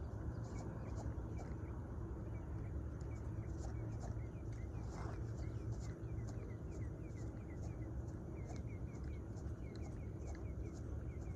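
Outdoor background: a steady low rumble with a rapid run of small, repeated animal chirps, and a brief rustle about five seconds in.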